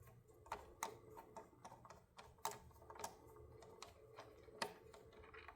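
Faint, irregular small clicks and ticks of a Phillips screwdriver backing two screws out of a miter saw's plastic handle, a few clicks a second.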